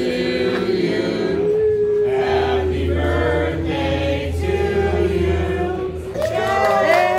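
A group of voices singing a birthday song together, holding long, wavering notes.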